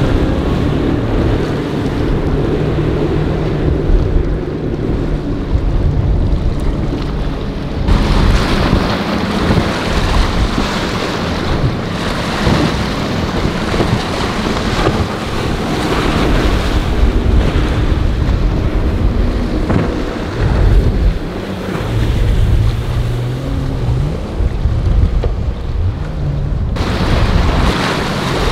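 Outboard engines of center-console boats running at speed through choppy water, a low engine drone under the rush of wake, waves and wind on the microphone. The sound changes abruptly twice, about 8 and 27 seconds in, as one boat's pass gives way to another's.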